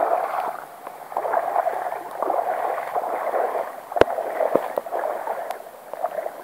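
Water sloshing and splashing as someone wades through shallow floodwater, swelling with each step about once a second. A sharp knock about four seconds in.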